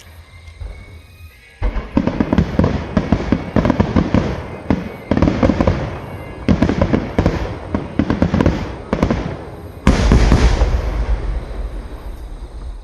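Fireworks display: after a short lull, rapid salvos of aerial shells burst with dense crackling in repeated waves. The heaviest, deepest boom comes about ten seconds in, then the bursts fade.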